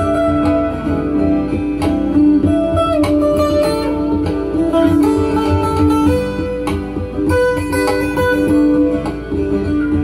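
Acoustic guitar being picked over looped guitar layers from a loop pedal: a held low note keeps sounding while new plucked notes and phrases come in on top.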